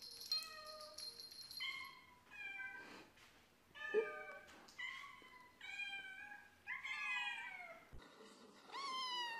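Domestic cats meowing: a run of about seven short, high meows, most falling in pitch, then near the end one higher, rising-and-falling kitten mew.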